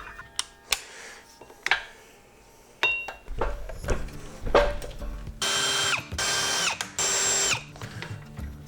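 A few sharp metallic clinks of tools and parts, then three short runs of a handheld power tool's motor, each under a second, spinning at a steady pitch that sags as it stops, while a fastener comes off the Ford 9-inch axle.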